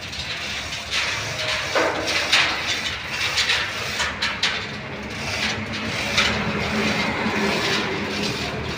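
Irregular metal knocks and clanks from handling the heavy steel water tank and its lifting gear, over a steady low engine hum.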